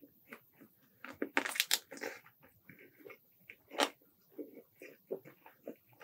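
Close-up eating sounds of a sauce-coated fried chicken drumstick being bitten and chewed: crunching with wet smacking, loudest in a burst of crunches about a second and a half in and one sharp crunch near four seconds.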